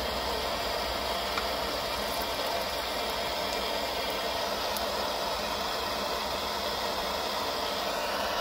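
Handheld butane-propane blowtorch flame burning steadily, a constant rushing noise without change in level.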